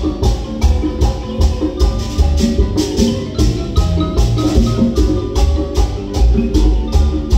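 Marimba ensemble playing a merengue: marimba melody over drum kit, congas and double bass, with a steady, quick beat, amplified through a PA.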